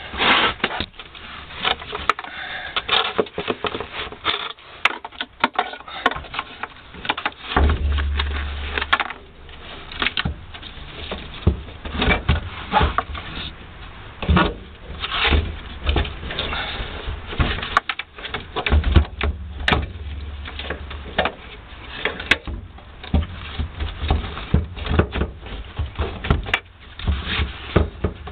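The rear heater unit of a VW T4 van being manoeuvred up into its mounting under the floor by hand: irregular knocks, scrapes and rattles of its housing against the brackets and rail, with a couple of dull low thumps about a third and two thirds of the way through.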